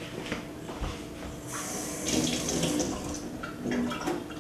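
Kitchen faucet running into the sink for a second or two, starting about one and a half seconds in, with a few light clinks of glassware.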